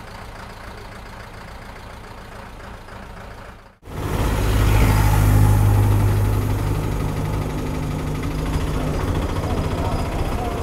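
A three-wheeler auto-rickshaw's engine running loudly and steadily, heard from on board while riding along a rough dirt road. It starts abruptly about four seconds in, after a few seconds of quieter steady background noise.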